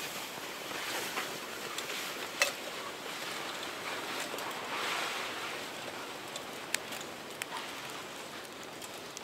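Footsteps crunching through snow and a loaded sled sliding over the snow behind them, with scattered sharp crunches, slowly growing fainter.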